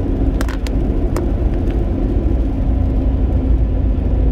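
Steady low road rumble of a car driving on a wet highway, heard from inside the cabin, with a faint constant hum from the tyres and engine. A few light clicks come in the first second and a half.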